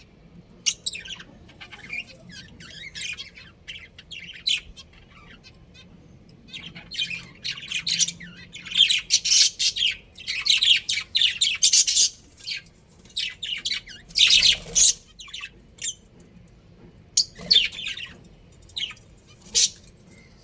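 Budgerigars chirping and chattering: a rapid stream of short, high calls that thickens in the middle, with the loudest calls about two-thirds through.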